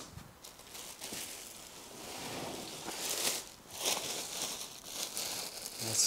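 Clear plastic bag crinkling and rustling as it is handled and pulled back from around a boxed RC excavator, in irregular bursts that grow louder around the middle and again near the end.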